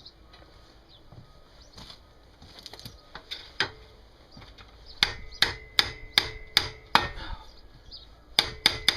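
Hammer blows ringing on metal: a few light taps, then a steady run of strikes about two or three a second from about five seconds in, and a faster run near the end. A seized part on a British Seagull outboard motor is being knocked at; it will not come free and will probably need heat.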